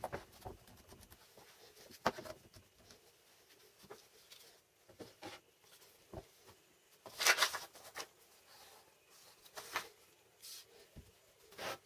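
Scattered light clicks and knocks of small parts being handled, with a short rustling scrape about seven seconds in.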